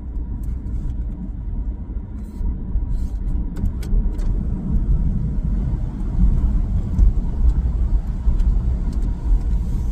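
Lexus GS350's 3.5-litre V6 with a new axle-back exhaust, heard from inside the cabin on the move: a steady low rumble of engine, exhaust and road noise, a little louder in the second half.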